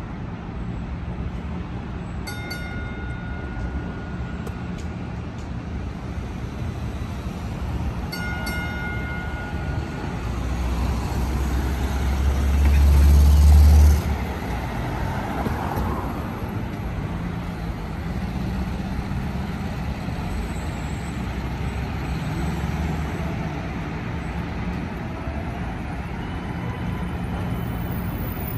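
Street traffic noise with an MBTA Green Line light-rail car moving along its tracks. Two short electronic beeps come about two and eight seconds in, and a heavy low rumble swells in the middle and cuts off suddenly.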